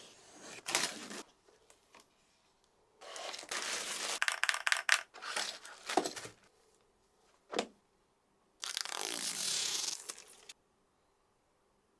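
Keyboard packaging being handled and opened: several bursts of scraping and rustling, a short sharp sound about seven and a half seconds in, and a steady rustle lasting about two seconds near the end.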